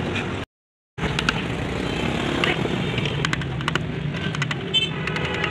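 Hand carving chisel cutting into a wooden relief panel, giving a few short, sharp clicks over a steady background rumble. The sound cuts out completely for about half a second near the start.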